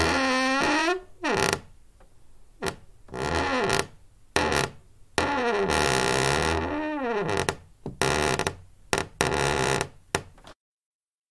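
Squeaky door hinge creaking: a series of drawn-out creaks whose pitch slides down and back up, with short sharp squeaks between them. It cuts off suddenly just before the end.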